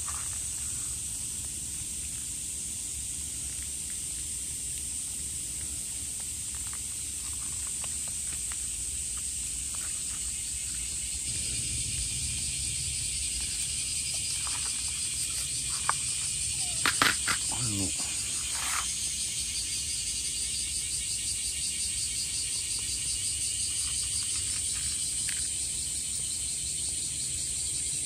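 Insects chirring in a steady, high-pitched outdoor chorus, with a second, pulsing insect call joining in a little before halfway. A brief voice-like sound stands out about 17 seconds in.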